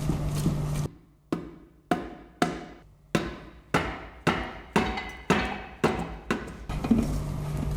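Background music: a percussive passage of evenly spaced struck hits, about two a second, each ringing out, between stretches of a steady low tone.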